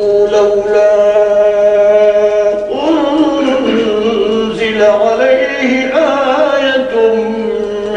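A male reciter's voice chants Quranic verses in a slow melodic style, with long held notes that later bend through ornamented turns.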